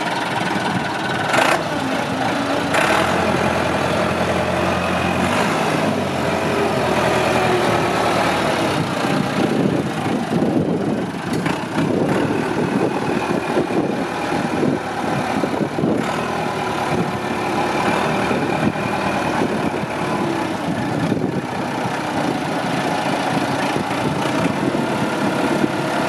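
Massey Ferguson 50HX backhoe loader's diesel engine running steadily as the machine drives and turns. There are a couple of sharp knocks in the first few seconds.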